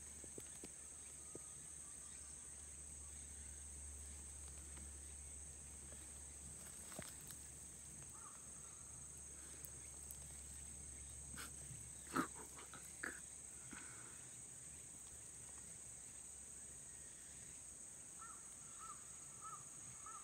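Quiet outdoor ambience of a steady high-pitched insect drone, with a few short faint chirps and a couple of sharp clicks about midway.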